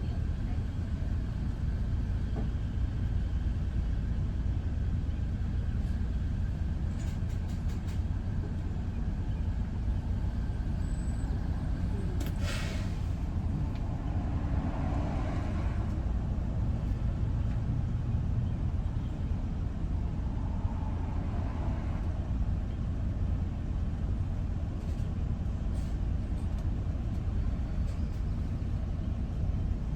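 Steady low road and engine rumble of a vehicle driving at speed, with a brief hiss a little before halfway.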